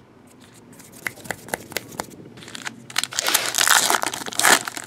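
A few light ticks, then a trading-card pack wrapper being torn open and crinkled, loudest in the last second and a half.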